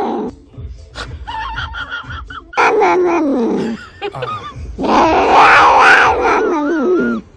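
Domestic cat yowling while its cheeks are held: a few short, soft cries, then a long cry falling in pitch, then a longer drawn-out yowl whose pitch wavers near the end.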